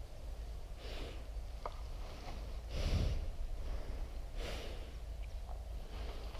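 A person breathing close to the microphone, three audible exhales, the loudest about three seconds in, over a low rumble of wind or handling on the microphone.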